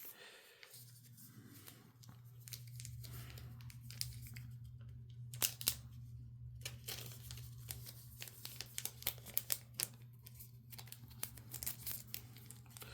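Yu-Gi-Oh trading cards and foil booster-pack wrappers being handled: irregular crinkling, rustling and small clicks, with a steady low hum coming in about a second in.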